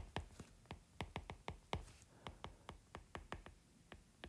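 Faint, irregular clicks of a stylus tip tapping on an iPad's glass screen during handwriting, about four a second.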